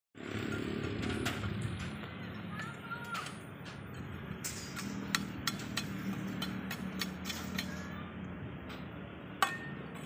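A low engine-like hum with a steady pitch, swelling and fading, with scattered sharp clicks and one louder click near the end.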